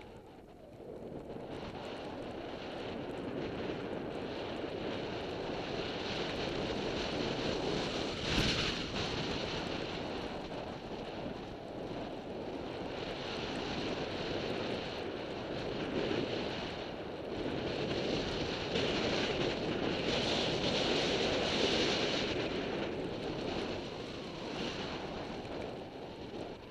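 Wind buffeting the microphone of a body-worn camera during a fast run down a snowy slope, with the scrape of the rider sliding over snow, rising and falling in waves. A single short knock about eight seconds in.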